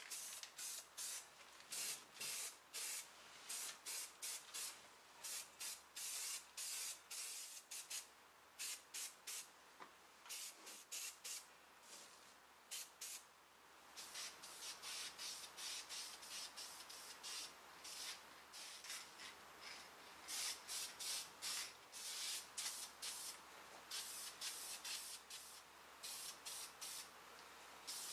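Aerosol spray paint can spraying in short hissing bursts, roughly one to two a second, with a brief pause about halfway through.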